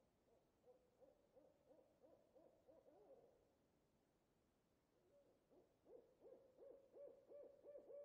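Owl hooting in two quick runs of short notes, about three a second, faint. The second run starts about five seconds in and is louder than the first.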